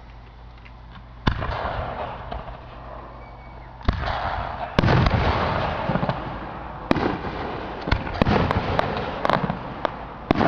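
Fireworks bursting: a sharp bang about a second in, trailing into crackling, then more bangs and a quick run of sharp reports with crackle through the second half.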